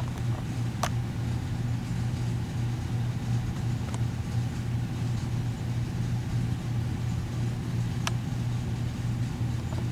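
A steady low hum with a sharp click about a second in and another near the end.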